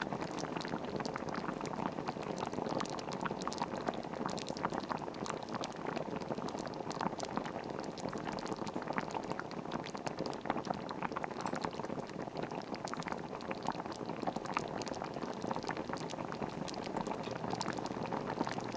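Soup boiling, bubbling steadily with many small pops.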